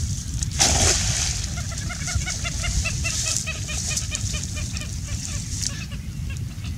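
A bird calling a rapid series of short, evenly spaced notes, about four or five a second, over a steady low rumble, with a brief rush of noise just under a second in.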